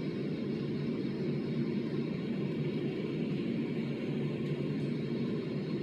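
A steady low mechanical hum with no change in level.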